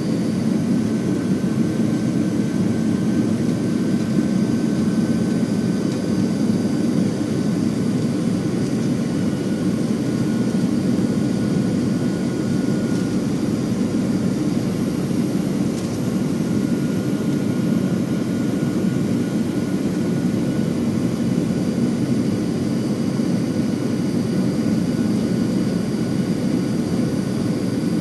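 Steady jet airliner cabin noise in flight: an even engine and airflow roar with a few faint steady whining tones above it.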